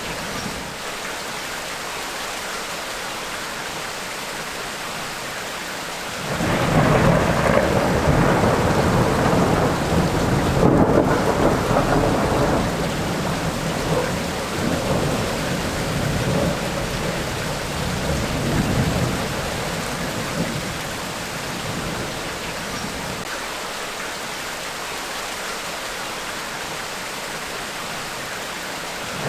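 Steady rain from a tropical rainstorm. About six seconds in, a long rolling rumble of thunder builds, swells and surges for about fifteen seconds, then fades back into the rain.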